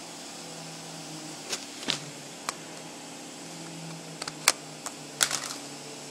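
Sharp clicks and knocks of an old Samsung mobile phone being handled and set down on a hard floor, a few light ones first and a louder clatter of taps a little past halfway. A steady low hum runs underneath.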